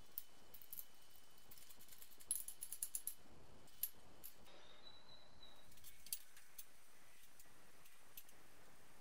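Faint light metallic clicks and clinks of hand tools and small parts while the crank position sensor mount is fitted to the engine, including a quick run of about eight clicks around two and a half seconds in.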